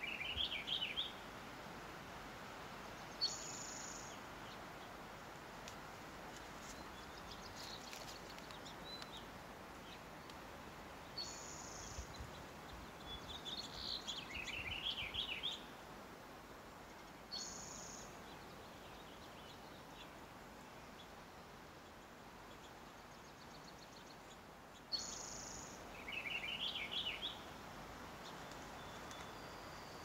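Songbirds singing: three runs of quick chirping notes, at the start, in the middle and near the end, and between them a short high note four times, over a faint steady background hiss.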